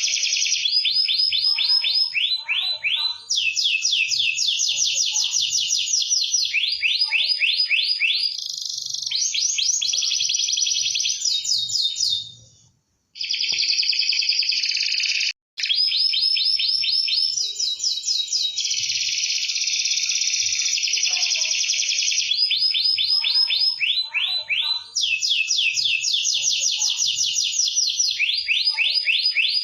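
Domestic canary singing a fast, continuous song of rapid trills and rolls. The song drops out briefly twice a little before the middle.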